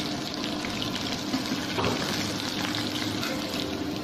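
Besan-battered ivy gourd strips deep-frying in hot oil in a steel kadai: a steady sizzle with small crackles as the coating turns brown and crisp.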